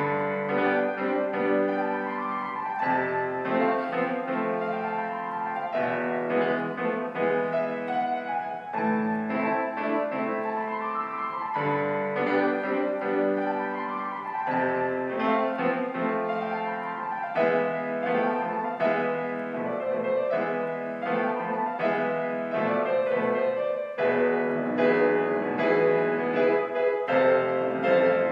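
Grand piano played solo in a classical style, with rising-and-falling figures repeated every few seconds over full chords.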